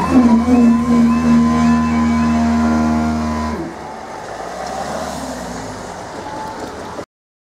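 Level crossing half-barrier hydraulic pump motor starting with a brief rising whine, running steadily for about three and a half seconds, then cutting off suddenly: the barriers being raised after the train has passed.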